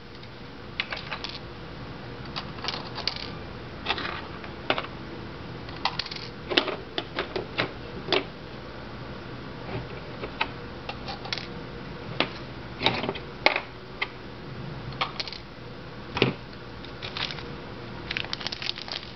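Metal washers clicking as they are picked from a pile and dropped over the screws on the top plate of an HHO dry cell: a long series of irregular small sharp clicks and clinks. A faint steady hum runs beneath.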